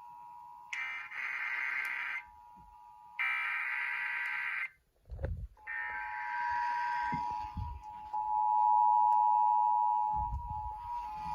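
Emergency Alert System signal: three short bursts of buzzing SAME data header over a steady two-tone attention signal, which then sounds on its own and grows louder near the end. It marks the start of a relayed tornado warning.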